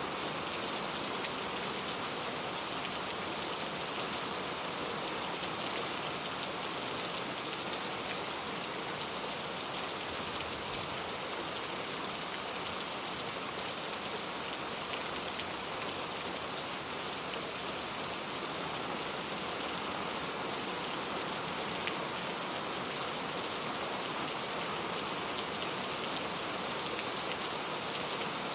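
Steady rain falling, a dense even hiss of many small drop hits that holds the same level throughout.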